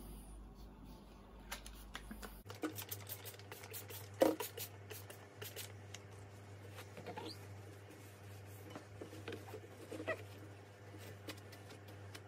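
Faint handling sounds of a glass terrarium being sprayed and wiped clean with a paper towel: scattered light taps and clicks on the glass and frame, with a few short squeaks of rubbing on the glass.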